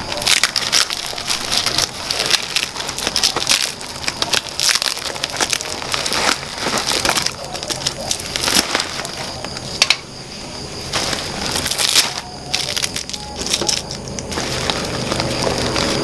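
Woven plastic sack and its plastic raffia ties crackling and rustling as they are cut and pulled apart with a small knife, in rapid irregular crackles with a brief lull about ten seconds in.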